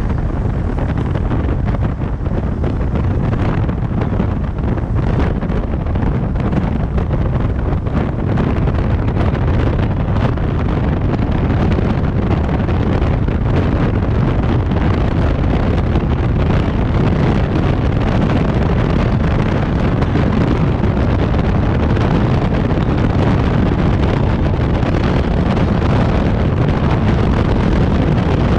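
Steady wind buffeting on the camera microphone over the low rumble of a moving vehicle on the road.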